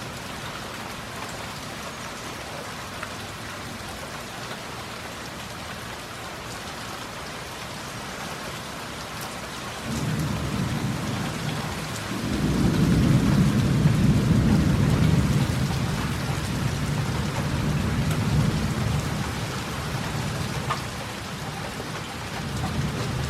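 Heavy rain falling steadily, with a long roll of thunder. The thunder starts about ten seconds in, swells to its loudest a few seconds later, then slowly rumbles away.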